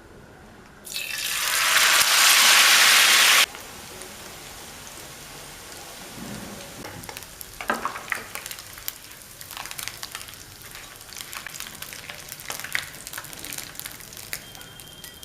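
Boiled noodles deep-frying in hot oil. A loud burst of sizzling starts about a second in and cuts off suddenly a couple of seconds later. After that the frying goes on more quietly, with steady crackling and scattered small pops.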